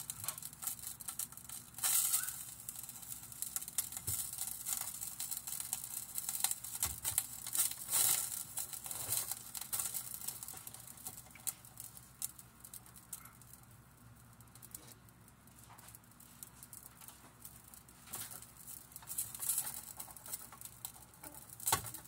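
Steak frying in melted butter in a pot: a dense crackling and spitting, with a few louder knocks near the start, in the middle and near the end.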